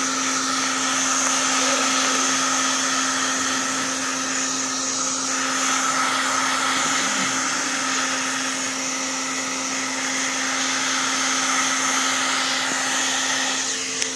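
Black & Decker heat gun running steadily, its fan blowing hot air in a rushing noise with a steady hum underneath.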